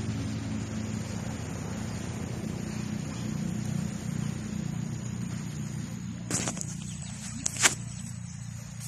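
Steady low drone of a distant engine, slowly fading, then a couple of knocks and rubs near the end as the phone is picked up.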